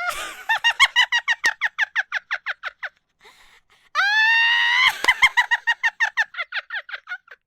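A person laughing hard in a high, shrieking voice: a squeal that breaks into a rapid run of ha-ha-ha pulses, a short breathy pause, then another long high squeal about four seconds in, followed by a second fast string of laughs that trails off.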